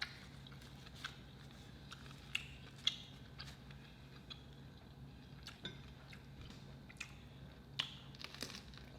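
Close-miked eating of seafood boil food: irregular crunches and sharp clicks of biting and chewing, the loudest about 3 s in and near the end, over a low steady hum.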